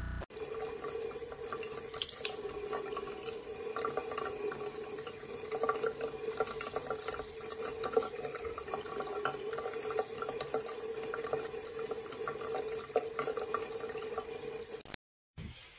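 Bathroom tap running a thin stream into a sink, a steady trickle with a low tone in it. Small irregular splashes come as a cat paws at the falling water.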